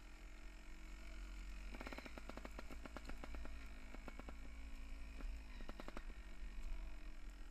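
Mountain bike ridden down a rough forest trail, the bike clicking and rattling in irregular runs between about two and six seconds in, over a steady low rumble of wind on the microphone.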